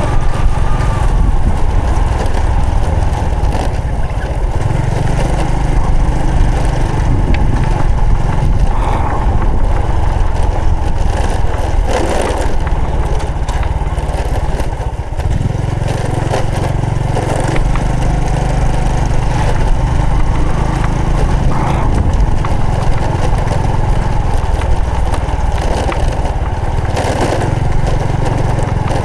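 Honda Supra X 125 FI's 125 cc single-cylinder four-stroke engine running on the move. The engine note rises and falls with the throttle, with a short drop about halfway through.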